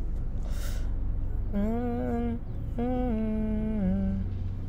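A woman humming to herself in two short phrases, each about a second long, starting about a second and a half in. She holds near-level notes that step down at the end of each phrase, over a steady low background hum.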